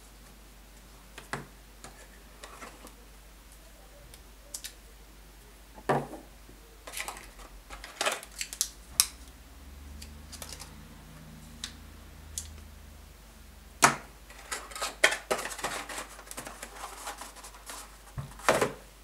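Hands unpacking a tablet's white cardboard box: scattered taps and knocks as the paper leaflet, plug charger and USB cable are lifted out and set down on a wooden table, then a busier stretch of cardboard rustling and knocking as the box tray is handled.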